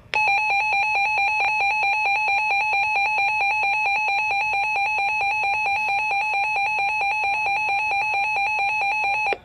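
Emergency alert alarm tone announcing a severe thunderstorm warning: one rapidly pulsing electronic beep, buzzy and steady in pitch, sounding without a break for about nine seconds.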